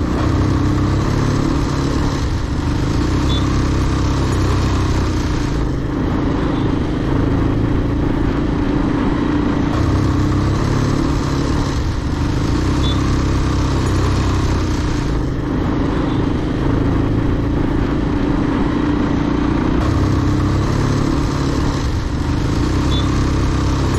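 Motorcycle engine running steadily while riding, under a constant rushing noise with no revving.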